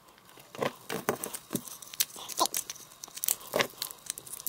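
Irregular clicks, taps and crinkly rustles of small objects being handled.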